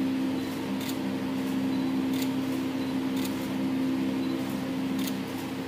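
Steady low hum from studio equipment, broken by a few sharp camera shutter clicks spaced a second or more apart as the photographer shoots.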